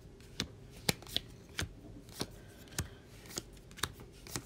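Magic: The Gathering cards being dealt one at a time onto sorting piles on a playmat, each card landing with a short sharp tick, about two a second.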